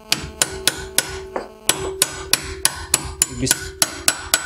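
Steel hammer tapping a ball bearing back onto a Buran snowmobile bogie's balancer tube, about four quick even taps a second with a metallic ring, starting the bearing onto its seat.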